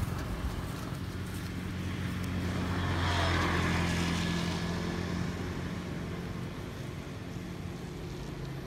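A motor vehicle's engine running as it passes by. It grows louder to a peak about three seconds in, then fades.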